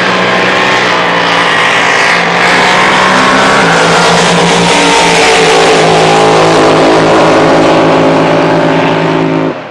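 Drag boat engines running flat out down the course: a loud, steady engine note that steps down in pitch a little under 4 s in and cuts off just before the end.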